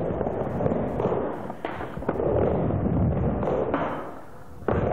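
Skateboard wheels rolling across a mini ramp as the skater pumps up and down the transition: a rumble that swells and fades with each pass, broken by a few sharp clacks, the loudest near the end.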